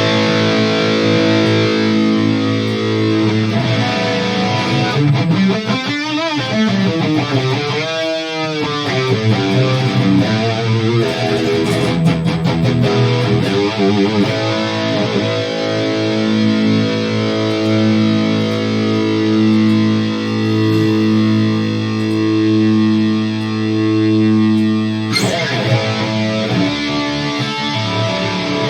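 Electric guitar played through a Mooer GE200 modeling unit with a chorus-type modulation effect: held chords ringing out with a wavering pitch, and a fresh strum about 25 seconds in.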